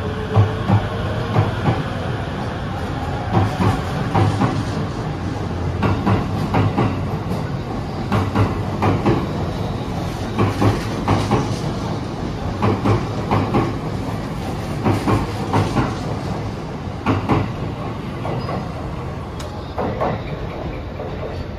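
E257 series electric limited express train accelerating out of the station past the platform. Its wheels clatter over the rail joints in quick pairs and groups, over a steady rumble, with a rising whine at the start.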